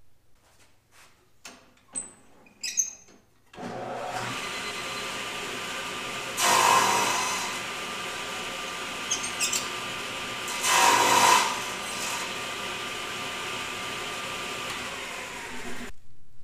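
Table saw starting after a few light knocks, then running steadily; the blade cuts through wood twice, each cut louder for about a second.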